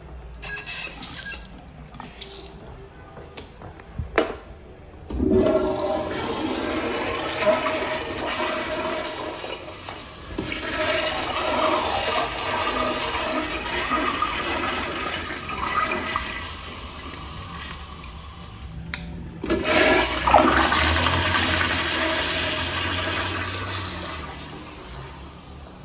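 Wall-hung commercial toilet with a flushometer valve and a bowl without a siphon jet, flushing: a loud rush of water starts after a sharp click about four seconds in and lasts about fourteen seconds. It cuts off suddenly, and a second flush follows and fades out near the end.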